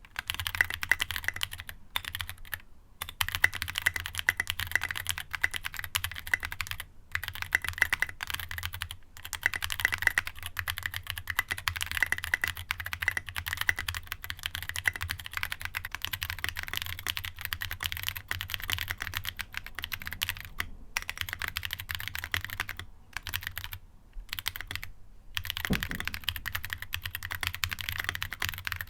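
Fast typing on a Ginkgo65 mechanical keyboard with Bolsa Supply Corsa long-pole tactile switches in a gasket-mounted aluminium plate with no foam: a rapid, steady stream of keystrokes with a crisp bottom-out, broken by a few short pauses.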